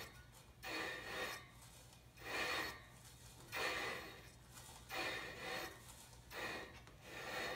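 Rhythmic rubbing, about one swish every second and a half, from a spoked motorcycle wheel being turned by hand, something brushing it once per turn, over a faint steady low hum.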